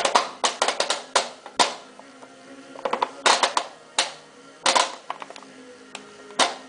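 Controls of a Whirlpool AWM4066 washing machine being worked: clusters of sharp mechanical clicks, several in quick succession about every second or so, the kind a programme dial or push buttons make as they are operated.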